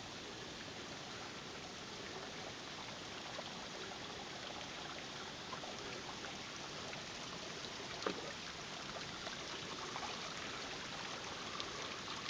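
Steady running and trickling of water in the rock pool at the head of a small waterfall, with a faint knock about eight seconds in.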